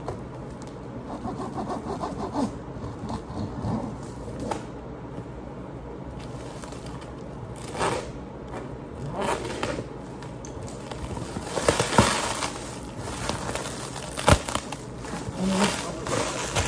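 Clear plastic stretch wrap crinkling, rustling and scraping as it is pulled and torn off a cardboard box, in irregular bursts, the loudest cluster about twelve seconds in, with one sharp click a couple of seconds later.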